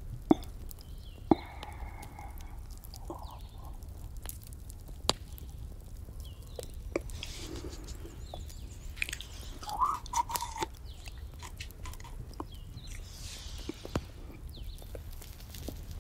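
Crackling campfire: irregular sharp pops and snaps over a low steady rumble, with a few louder cracks in the first five seconds. Soft breathy exhales of cigarette smoke close to the microphone come and go.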